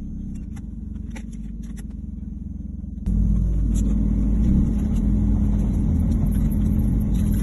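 Car engine running through a home-made DIY exhaust, a low tractor-like rumble heard from inside the cabin; about three seconds in it suddenly gets much louder.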